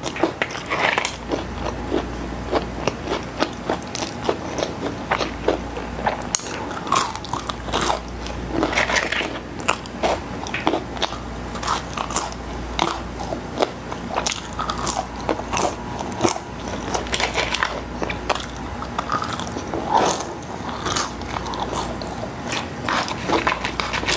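McDonald's Twister fries, seasoned curly fries, being bitten and chewed close to a clip-on microphone: a run of irregular crisp crunches and mouth chewing sounds.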